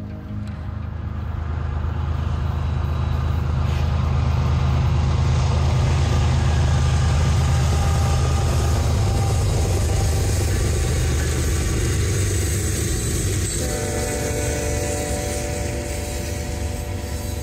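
Diesel locomotives of a BNSF freight train passing. Their engine drone builds, then fades into the rolling rumble of the tank cars on the rails.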